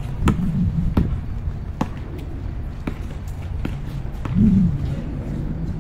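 A basketball dribbled on an outdoor court: sharp bounces less than a second apart, strongest in the first two seconds and fainter as play moves away, over a steady low background noise.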